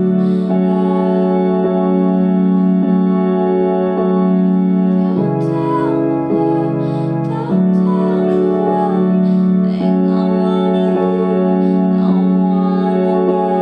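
Live music: sustained organ-like keyboard chords that change every few seconds, with a wordless voice gliding faintly above them.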